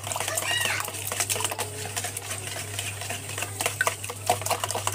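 Wire whisk beating eggs in a plastic bowl: quick irregular clicking and tapping of the wires against the bowl, over a steady low hum.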